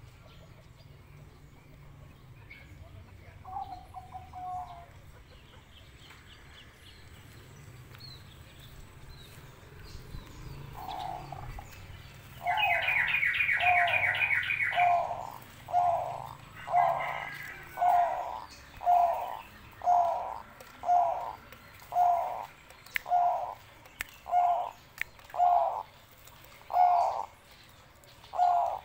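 Zebra dove (perkutut) cooing: one faint call about four seconds in, then from about eleven seconds a steady run of repeated coos, roughly one a second. From about twelve to fifteen seconds a loud burst of high, rapid chirping sounds over the coos.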